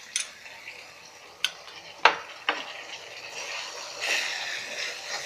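Spoon or spatula clicking against a pan several times, the loudest about two seconds in, as chopped tomatoes go into potatoes frying in oil. From about four seconds in the oil sizzles louder as the pan is stirred.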